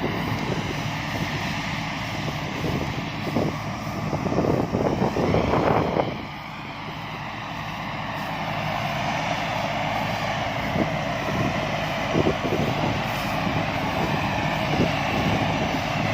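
Combine harvester engine running steadily, swelling louder about four to six seconds in, then dropping off sharply and slowly building back up.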